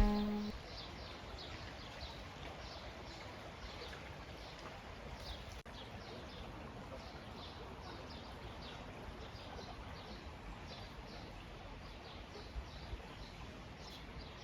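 A stream flowing as a steady rushing noise, with a small bird singing many short, high chirps throughout.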